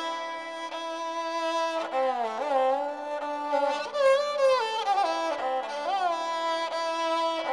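Background instrumental music: a melody with sliding, bending notes over a steady held drone.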